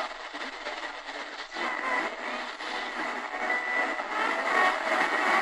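Realistic DX-350 portable radio tuned across the medium wave (AM) band between stations: hiss and static with faint whistling tones, getting louder about one and a half seconds in.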